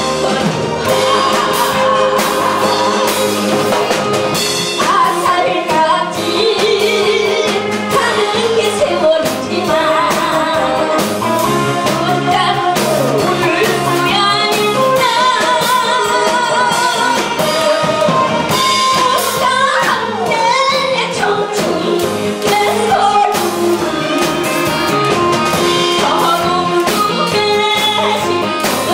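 An older woman singing a Korean song into a handheld microphone, her voice amplified and sung with vibrato, over recorded backing music with a steady drum beat.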